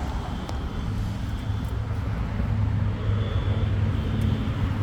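A steady low droning hum with a faint high thin tone that comes and goes. It is an unexplained outdoor sound, loud and alarm-like and seeming to come from the sky, which the recorder guesses may be cicadas.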